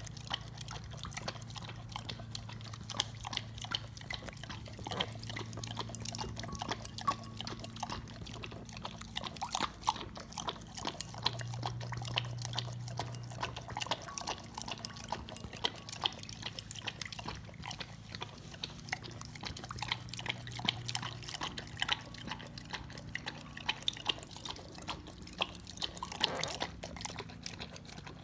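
A dog lapping a babyccino (frothed milk) from a ceramic bowl: a steady stream of quick, wet laps and licks, with a low steady hum underneath.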